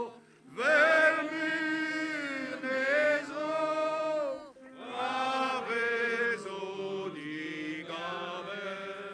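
Voices chanting a slow ceremonial chant, two long phrases of held and gliding notes with a short break about halfway.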